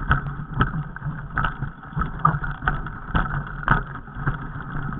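Irregular knocks and rattles, several a second, over a steady rumble: handling noise from a jostled camera moving over a rocky trail.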